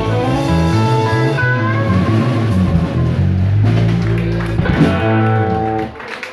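Live band of electric guitars and drums playing an instrumental, with held chords and a melody line over a low bass part; the tune comes to its final stop about six seconds in.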